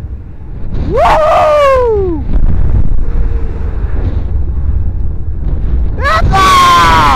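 Roller coaster ride heard from the train: steady wind rushing over the microphone with a low rumble, and riders screaming twice, about a second in and again near the end, each scream sliding down in pitch.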